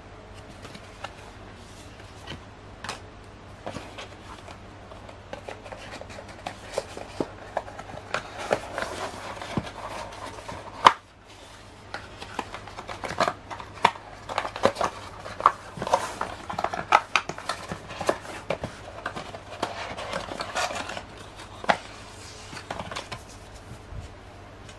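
Cardboard box insert and paper leaflets from a tablet's retail box being handled: rustling, sliding and light tapping, with one sharp knock about eleven seconds in.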